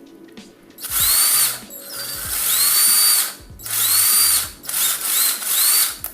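12V cordless impact driver run in five short trigger bursts after a quiet first second, each starting with a rising whine as the motor spins up.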